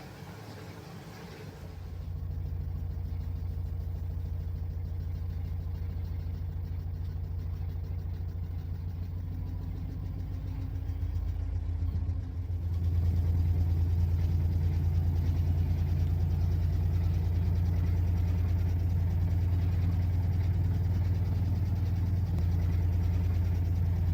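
LG top-loading washing machine running with a steady low motor hum; the hum starts about two seconds in and gets noticeably louder about thirteen seconds in.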